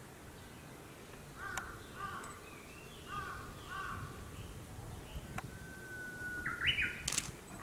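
Crows calling: four short caws, then a longer drawn-out call that rises in pitch near the end. A few sharp clicks fall among the calls, the loudest near the end.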